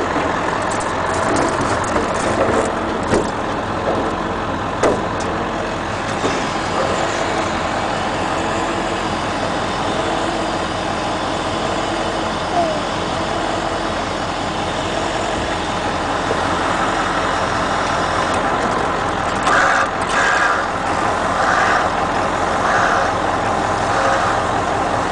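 Ford Super Duty's Power Stroke diesel engine running steadily, driving the hydraulics as the bucket truck's boom is lowered. A few knocks in the first five seconds.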